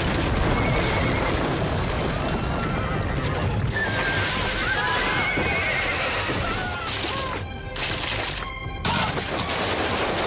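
Horses neighing, with wavering whinnies about half a second in and again around four to six seconds, over the dense rumble of a cavalry charge's galloping hooves. Dramatic film music plays underneath.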